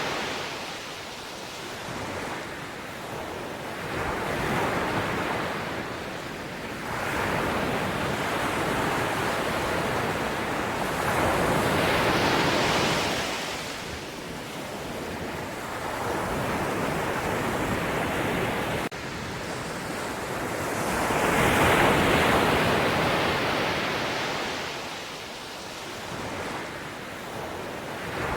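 Ocean waves breaking and washing on the shore, swelling and ebbing every few seconds, with the biggest surges about a third of the way in and again near three-quarters through.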